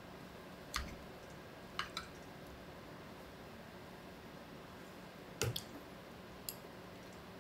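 A metal spoon clicking and scraping a few times against a ceramic plate as it cuts into a patty, with a light double click about five and a half seconds in, over a faint steady room hum.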